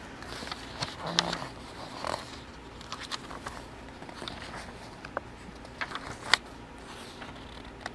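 Faint handling noises: light rustling with scattered small clicks and taps, the sharpest a little after six seconds.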